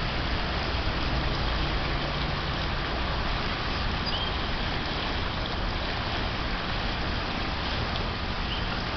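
Flood-swollen creek rushing past in a steady, even roar of moving water.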